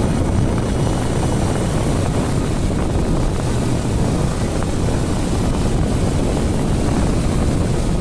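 Steady wind rush and low rumble on the camera's built-in microphone of a motorcycle riding along a road, with the bike's running noise mixed in.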